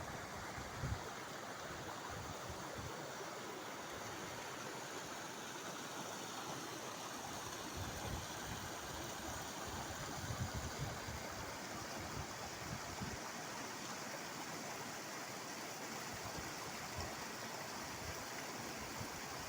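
Running water rushing steadily, like a stream, with a few short low bumps near the start and in the middle.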